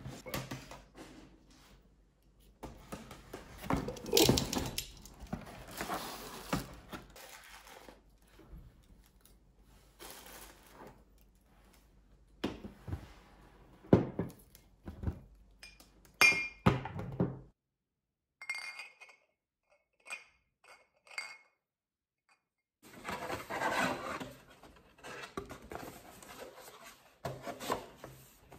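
Unpacking a cardboard box by hand: cardboard flaps and packing paper rustling, with scattered knocks. Glass bottles and glass watering globes clink and ring briefly as they are handled, a few times past the middle.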